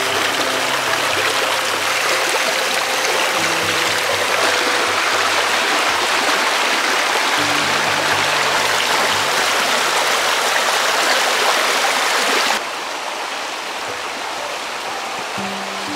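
Shallow rocky stream rushing over stones, with soft background music of held low notes. About three-quarters of the way through the rushing drops suddenly to a quieter, gentler flow.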